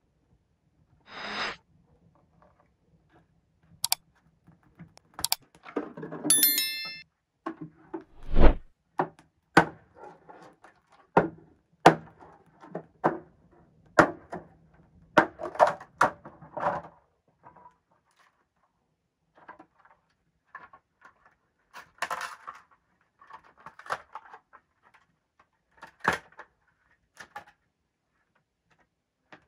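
Irregular knocks, clicks and taps, a few dozen spread across the clip, with a short metallic ring about six seconds in and one heavier, deeper thunk just after it.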